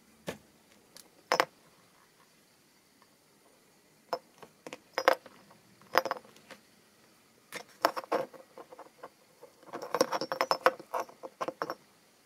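Small metal pin badges clicking and clinking against each other and the surface as they are handled. There are a few single taps at first, then clusters of clinks, and a quick flurry near the end.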